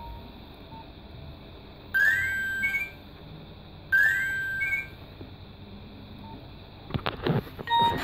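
Nokia 1600 mobile phone's speaker playing an alert-tone preview: two identical short chirps of quickly rising beeps, about two seconds apart. Near the end comes a brief cluster of clicks and knocks.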